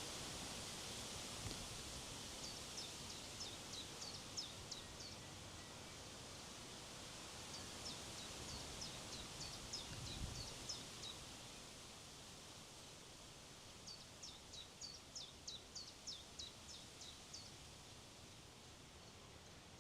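Steady wind rushing over the microphone and through the vegetation, with a small songbird singing three phrases of quick, high, downward-slurred notes about three a second, and a brief low wind thump about halfway through.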